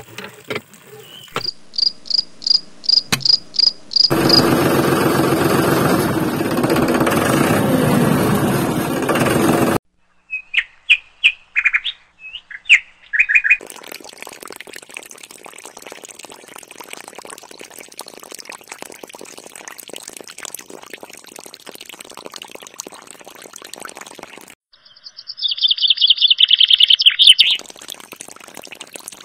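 High chirping calls come in bursts: a quick even series at the start, a few calls around 11–13 seconds in, and a loud run of chirps about 25 seconds in. A loud steady rushing noise fills several seconds near the start. Through the middle, a faint trickle of water pours from a small toy tank's spout into a metal bucket.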